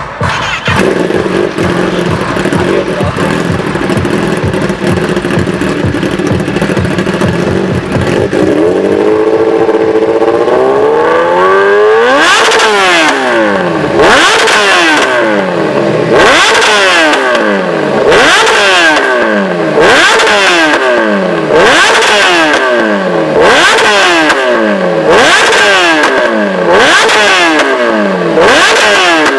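A Kawasaki ZX-10R's inline-four engine running through an SC Project exhaust. It idles steadily for about eight seconds and slowly rises in pitch. From about twelve seconds in it is blipped to high revs about every two seconds, each rev falling straight back.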